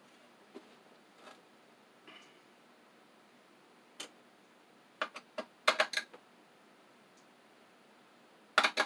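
Light metal clicks and clinks of a screwdriver working a small screw on a cassette deck's metal chassis: a single click about four seconds in, a quick run of clicks a second later, and another run near the end.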